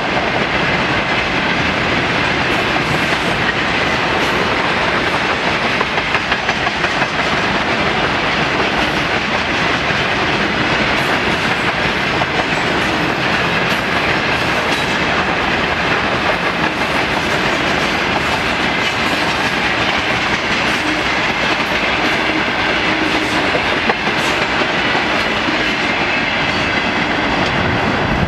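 Freight train wagons rolling past, their wheels clattering over the rail joints in a loud, steady clickety-clack.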